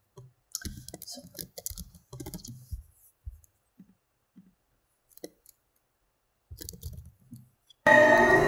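Computer keyboard typing in short bursts with mouse clicks, pausing for a few seconds midway. Loud music cuts in abruptly near the end.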